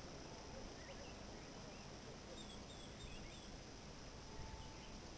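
Faint outdoor ambience: a few short bird chirps over a steady high insect hum and a low rumble of wind.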